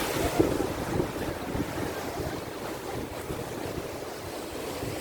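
Sea waves surging and breaking against a rocky shore, with wind buffeting the microphone in low, gusty rumbles.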